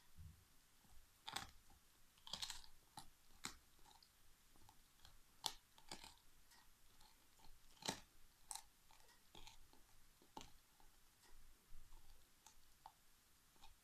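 Alaskan Malamute chewing a big turkey bone: faint, irregular crunches and cracks of teeth on bone, with a few sharper snaps scattered through.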